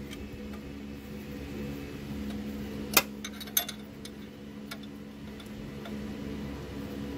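Metal hand tools clinking against the idler pulley bolt and engine-bay parts as the idler pulley screw is tightened: one sharp clink about three seconds in, a smaller one just after, and a few light ticks over a steady low hum.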